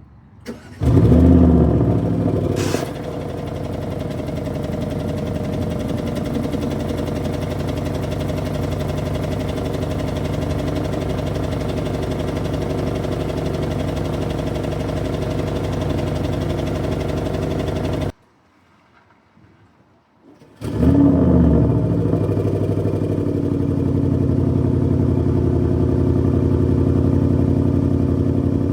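Audi RS6 C8's twin-turbo V8 starting up with a loud rev flare, then settling into a steady idle through the exhaust. After a short break of about two seconds it starts again with a second flare and settles back to idle.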